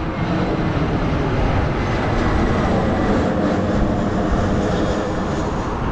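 Jet airliner passing overhead, its engines giving a loud, steady rushing roar.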